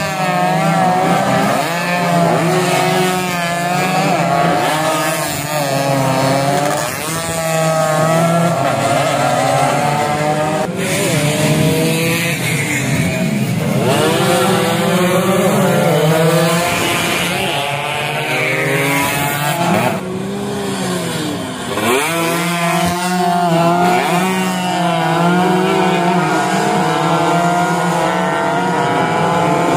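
Several two-stroke racing underbone motorcycles revving hard as they pass one after another, their engine pitches rising and falling with the throttle and gear changes and overlapping each other. A steady low drone runs underneath most of the time.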